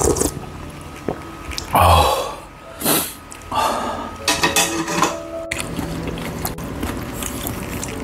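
A man slurping hot seafood noodle broth from a metal ladle, then letting out a few loud, breathy 'ah' exhalations over light background music with steady held notes. A sharp click comes about five and a half seconds in.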